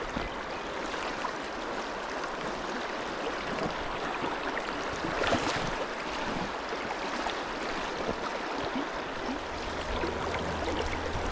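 River water flowing and rushing steadily around the wader, with a brief louder swish about five seconds in.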